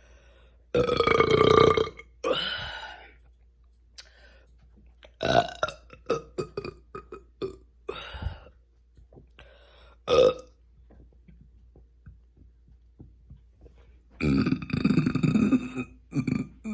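Deliberate human burps brought on by chugging carbonated sparkling water (Perrier). A long loud burp about a second in and a shorter one right after, then a string of smaller burps, a sharp one around ten seconds in, and another long loud burp near the end.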